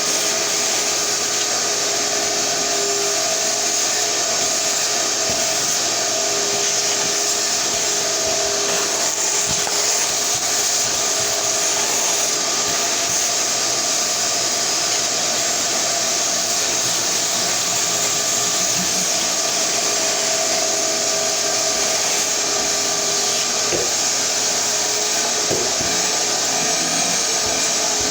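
A 7.5-gallon Shop-Vac wet/dry vacuum running steadily: a loud, even rush of air from the motor, with a steady whine over it.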